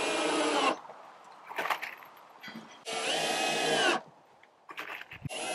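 Power drill driving screws into pallet-wood planks: two short runs of about a second each and a third starting near the end, with small clicks and knocks between them as the next screw is set.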